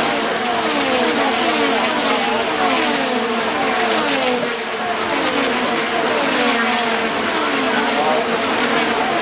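IndyCars' twin-turbo V6 engines passing one after another, each engine note dropping in pitch as the car goes by, in a steady string about every half second.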